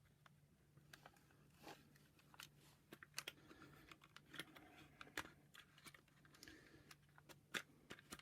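Faint, irregular small clicks and light rustles of hands handling the plastic housing and wiring of a vacuum cleaner's power nozzle, over a steady low hum.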